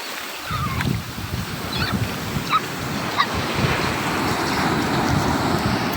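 Ocean surf washing up a beach, a wave's hiss building through the second half, with wind buffeting the microphone in low rumbling gusts.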